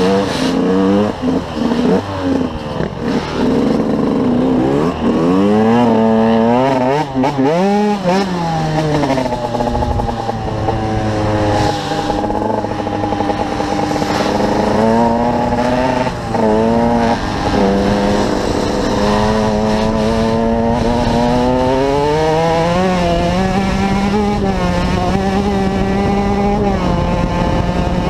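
KTM 125 EXC two-stroke dirt bike engine heard from the rider's helmet while riding. The revs rise and fall quickly over the first several seconds, then hold higher and fairly steady, with a couple of brief dips.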